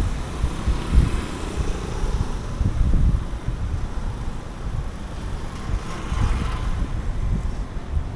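Wind buffeting the microphone in irregular low gusts, over a steady hum of street traffic.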